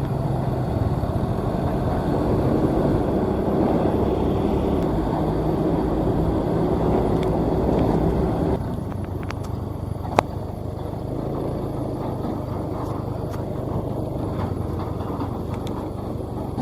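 Maxxi J Automatic combine harvester's engine running steadily as the machine travels, dropping somewhat in loudness about halfway through, with one sharp click a little after that.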